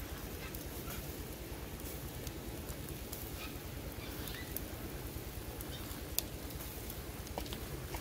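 Open wood-and-charcoal fire crackling, with scattered sharp pops, the loudest about six seconds in, over a steady low rumble.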